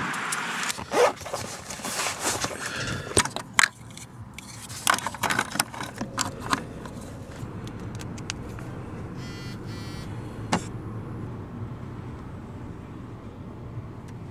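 Clicks, knocks and rustling of someone settling into a car seat and plugging a charging cable into a phone, busiest in the first seven seconds, then a quieter steady background with a single sharp click about ten and a half seconds in.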